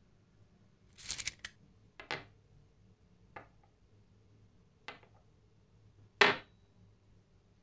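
Small steel rivets clicking as they are handled and set down on a wooden workbench: a quick cluster of clicks about a second in, then four single taps spaced a second or more apart, the last the loudest.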